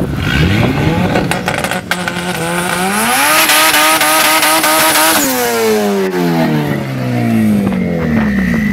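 Car engine revving: it climbs in pitch, holds at a high steady pitch for about two seconds, then falls away as the throttle closes. A thin high whistle rises over it near the end.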